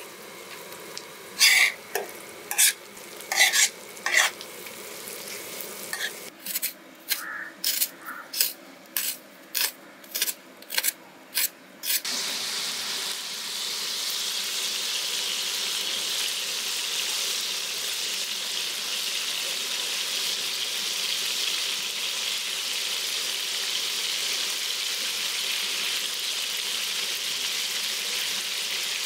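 Metal spatula scraping and knocking on a large flat griddle over frying food, in sharp strokes, irregular at first, then about two a second. About twelve seconds in the strokes stop suddenly and a steady sizzle of onions frying on the hot griddle carries on.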